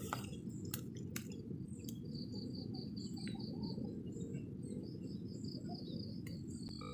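Outdoor ambience: a run of rapid, high-pitched chirping over a steady low rumble, with a few light clicks in the first second.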